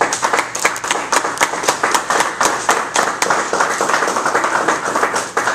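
Audience applauding: a small group clapping steadily, with individual claps easy to pick out, welcoming a speaker to the lectern.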